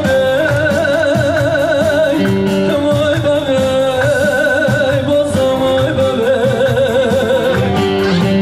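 Folk dance music: a melody with a heavy, wavering vibrato over a steady drum beat.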